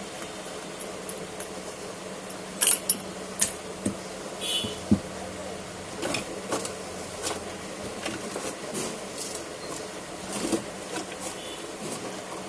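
Scattered small clicks, taps and short scrapes of tools and parts being handled as a ZTE Blade V40 Design smartphone is taken apart, over a steady low hum. The loudest clicks come in a cluster between about two and five seconds in, then lighter ticks continue.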